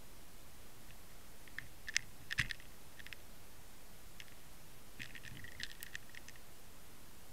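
Scattered sharp clicks and ticks picked up underwater by a camera on a fishing line, over a steady hiss: two louder knocks about two seconds in, the second with a dull thump, and a quick cluster of clicks around five to six seconds.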